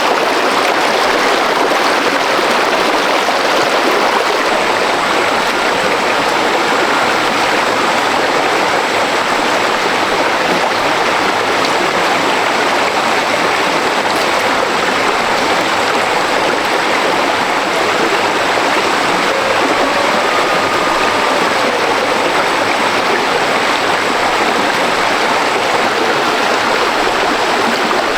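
Steady, loud rush of fast-flowing stream water tumbling over rocks at waterfall rapids.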